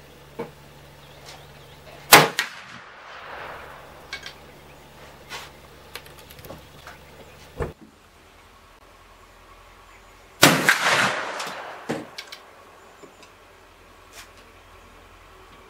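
Two shots from a .44 calibre percussion double rifle firing round balls over a black-powder charge: one about two seconds in and a second about ten seconds in, each ringing out briefly. A few faint clicks come between them.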